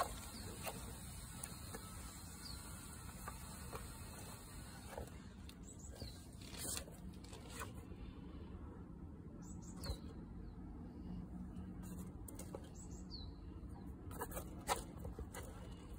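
Faint scattered clicks and taps from an African bullfrog feeding on dubia roaches in a plastic tub, with a few short, high, falling chirps.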